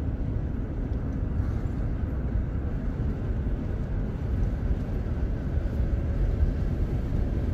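Steady low rumble of road and engine noise inside a minivan cruising on a paved road.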